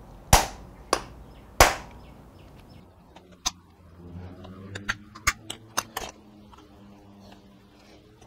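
Hammer striking a steel punch set in an old drill-press chuck, trying to drive out a rusted, stuck taper arbor. Three hard, sharp whacks come in the first two seconds, then a run of lighter taps and clicks.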